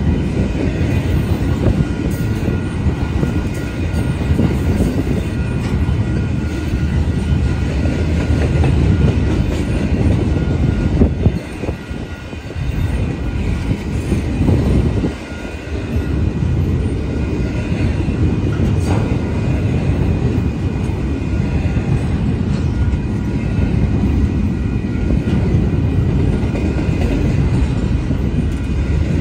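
Union Pacific double-stack intermodal train's well cars rolling past close by: a steady rumble and clatter of steel wheels on rail, with a faint high ringing over it. The rumble dips briefly about twelve and again about fifteen seconds in.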